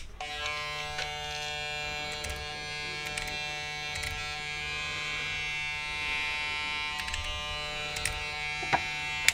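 Electric hair clipper switched on with a click and running with a steady buzz, then switched off with a click near the end. This is a test run of the clipper after its blade and stretch lever were refitted.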